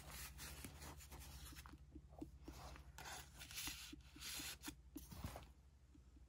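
Faint rustling and sliding of paper journaling cards being handled and drawn out of paper pockets in a handmade journal, a soft swish every second or so, over a steady low hum.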